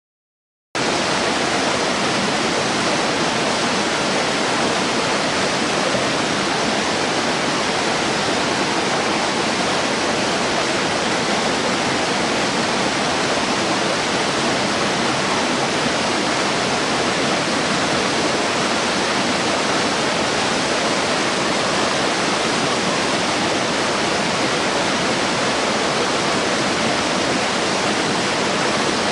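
Waterfall: a steady, even rush of falling water that starts abruptly about a second in.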